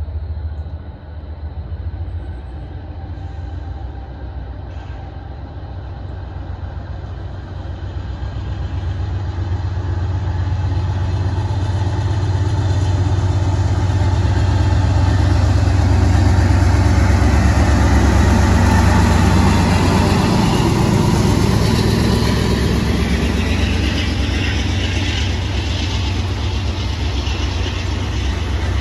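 Diesel locomotive of a maintenance-of-way train approaching and passing, its deep engine rumble growing steadily louder over about ten seconds and staying loud as it draws alongside. In the last several seconds a hiss of wheels on rail rises over it as the flatcars roll by.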